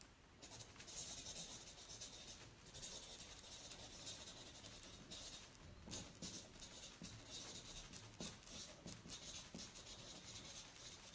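A marker scratching across flipchart paper as a line of words is written out, in short strokes with brief pauses between them. A pen writing on a notepad may be mixed in.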